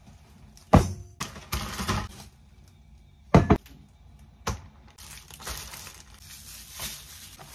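Groceries being unpacked onto a kitchen counter: plastic bags and packaging crinkling, with three sharp knocks as items are set down, the loudest about three and a half seconds in.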